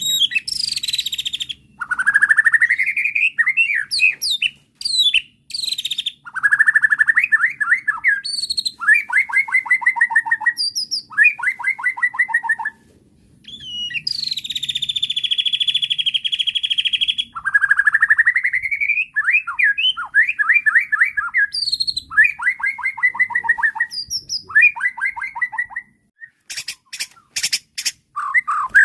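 White-rumped shama (murai batu) singing in an agitated, full song: rising whistled sweeps that break into fast trills of repeated notes, a long harsh buzzing note in the middle, and a few sharp clicks near the end.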